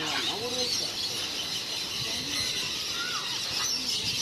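Many birds calling at once: a dense chatter of overlapping squeaks and chirps, high and low.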